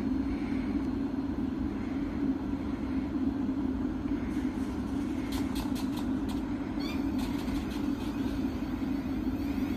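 Thameslink Class 700 electric multiple unit standing at the platform, its equipment giving a steady low hum. A few light clicks come about five to six seconds in.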